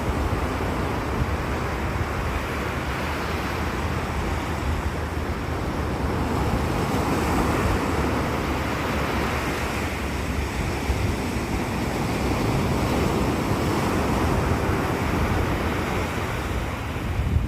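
Sea waves washing in steadily, a continuous surf hiss with a low rumble and gentle swells in level, with wind buffeting the microphone.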